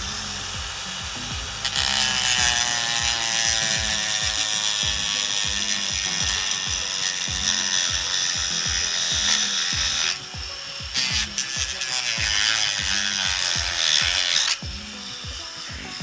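Rotary tool at low speed cutting the plastic fuel filler neck, a high whine with rasping as the bit bites. It grows louder about two seconds in, breaks off briefly after about ten seconds, and stops shortly before the end. Background music with a steady beat runs underneath.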